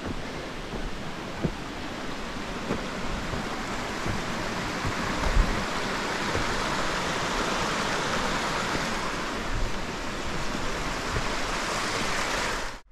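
Mountain creek rushing over rocks: a steady rush of water that grows louder partway through and cuts off suddenly near the end.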